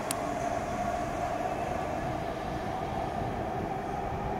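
Los Angeles Metro B Line subway train running away down the tunnel: a steady rumble of wheels on rail with a steady hum. There is one brief high click right at the start.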